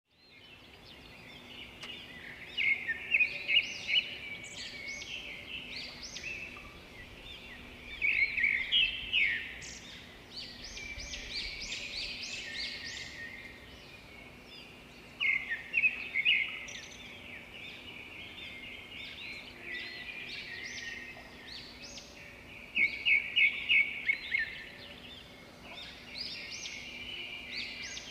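Songbirds chirping and singing, several calls overlapping, with a loud burst of rapid repeated notes every several seconds, four times in all.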